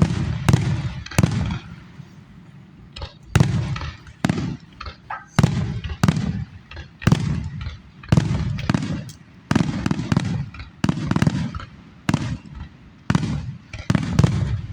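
Aerial fireworks shells bursting in quick succession, about one boom a second, each sharp bang trailed by a low rumbling echo.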